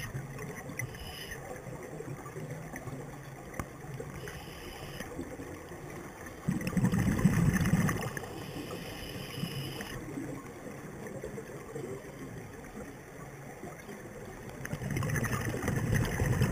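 Scuba diver's exhaled bubbles rumbling out of the regulator underwater, twice: once about six and a half seconds in and again near the end, over a steady underwater hiss.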